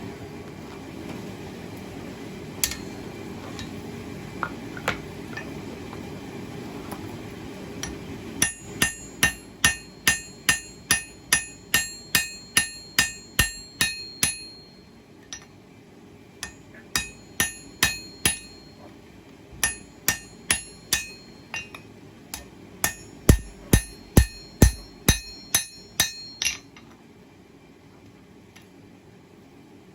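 Hand hammer striking hot 1084 high-carbon steel on an anvil, forging a knife's handle preform. The blows ring sharply. There is a run of about three blows a second for some six seconds, then shorter groups of blows with pauses, the last group heavier. For the first several seconds, before the hammering starts, there is a steady low rushing noise.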